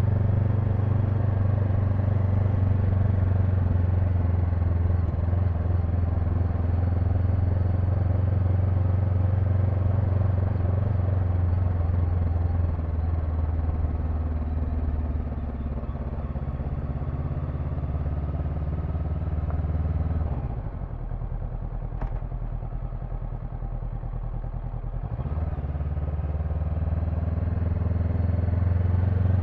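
Honda NX500's parallel-twin engine running on the move. About twenty seconds in, its note drops lower and quieter for about five seconds, with a single click in the middle, then builds again.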